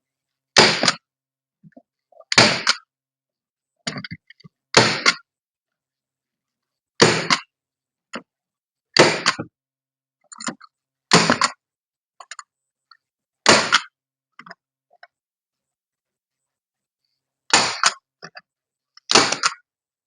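Hand staple gun firing staples into a door panel backer board, nine sharp snaps at irregular intervals of about two seconds, with a longer gap of about four seconds near the end.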